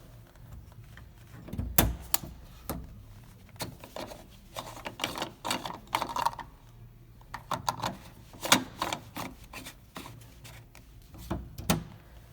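Irregular clicks, taps and knocks of something being handled, some in quick clusters, with the loudest knocks about two seconds in and about eight and a half seconds in.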